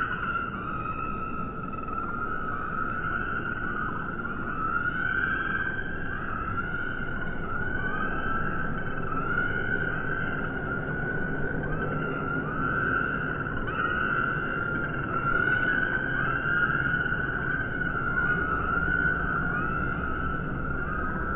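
Bird calls played back in slow motion: many overlapping rising-and-falling cries, about one a second, lowered in pitch so they wail like sirens.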